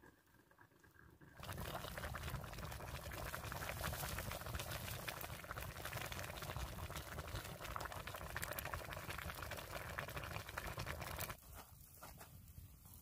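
Liquid boiling and crackling over heat in a cooking pot, starting abruptly about a second and a half in and cutting off abruptly near the end.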